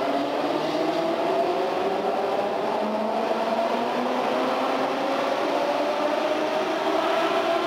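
Berlin S-Bahn class 480 electric train pulling away and picking up speed: its traction motors give a whine of several tones that rise slowly together, over the rumble of the wheels on the rails.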